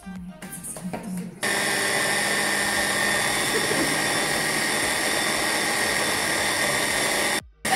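Handheld immersion blender switched on about a second and a half in, running steadily with a high motor whine as it blends a liquid mixture in a tall beaker. The sound breaks off briefly near the end and comes straight back.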